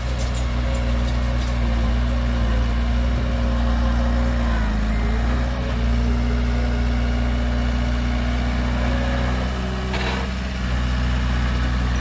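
Heavy diesel engine of earthmoving machinery running steadily, a deep drone with a slight dip in pitch about four and a half seconds in. A short hiss near the end.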